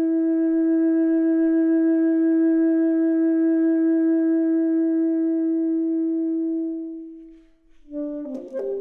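Soundtrack music: one long held wind or brass note that fades out about seven seconds in, followed near the end by a brief cluster of short notes and clicks.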